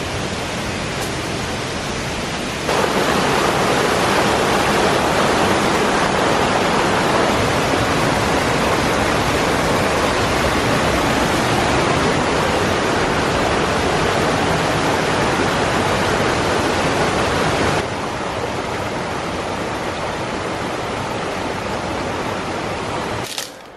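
Steady rush of flowing river water. It gets abruptly louder about three seconds in and drops back just as suddenly near eighteen seconds.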